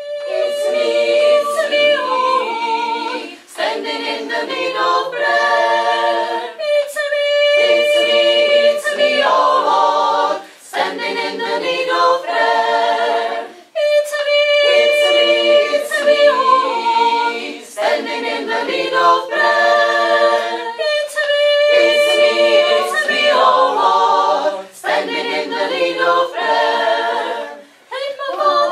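Small women's choir singing in phrases of a few seconds, each followed by a brief break.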